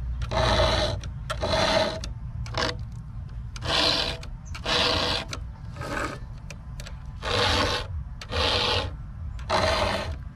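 A 3/16-inch round file rasping by hand across the cutters of a Stihl chainsaw chain as it is sharpened. The file strokes come in pairs, each about half a second long, with short pauses between them, about eight strokes in all.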